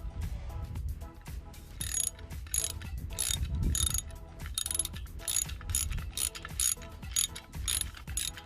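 Socket ratchet clicking in repeated back-and-forth strokes, a few per second, as it loosens the bolts of the dirt bike's side bracket.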